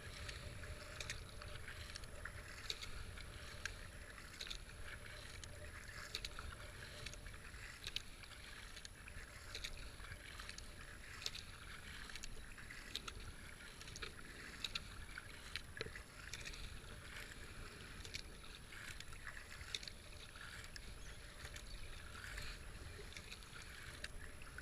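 Kayak paddle strokes in calm water: a double-bladed paddle dipping and pulling on alternate sides in a steady rhythm of a little more than one splash a second, with water washing along the racing kayak's hull.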